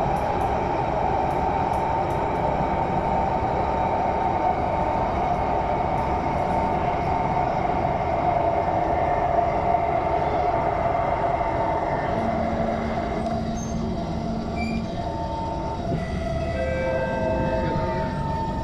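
Inside an SMRT metro train car: steady running noise from the wheels and rails with a whine from the traction motors. About twelve seconds in the whine gives way to a different set of tones and the noise eases a little as the train slows toward the station.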